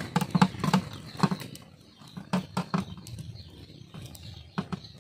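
Hands peeling the scalded inner skin off goat tripe on a steel plate: irregular short wet clicks and knocks, bunched in the first second and again about halfway through.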